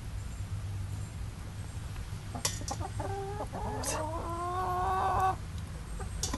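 Chickens calling: a few drawn-out calls, rising in pitch, from about two and a half seconds in until just past five seconds, the last held for over a second, with a few sharp clicks among them.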